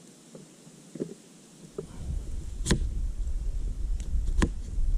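Two sharp chops of a small cleaver through potato onto a cutting surface, about a second and a half apart. A low rumble runs under them from about two seconds in.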